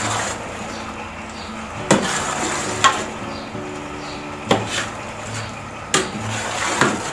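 Metal ladle stirring a thick mass of chickpeas in spiced masala in a large metal cooking pot (degchi): a wet scraping and churning, with about five sharp knocks of the ladle against the pot.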